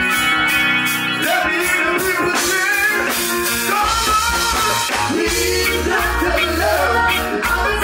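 Live reggae band playing: held guitar and keyboard chords, with a man's voice over them and the bass coming in about four seconds in.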